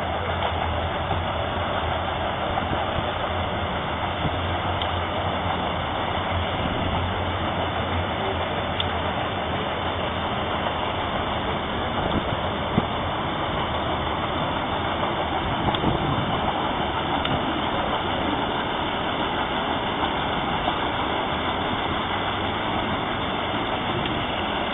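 A passing river ship's engine running steadily: a low hum that fades about halfway through, over a steady rushing noise.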